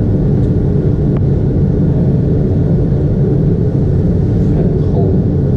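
Heavy forge machinery running with a loud, steady low rumble: the 180-tonne presses working in the next room.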